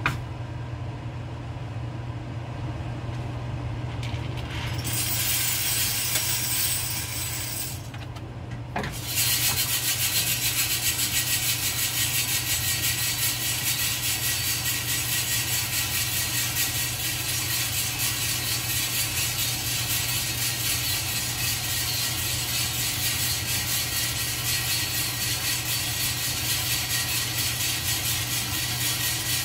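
A small machine's motor hums steadily. About nine seconds in, a louder, even rattling hiss starts and carries on.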